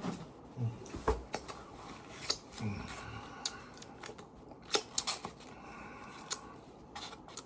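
MRE plastic pouches and packaging being handled and pulled out: an irregular string of sharp clicks and crinkles.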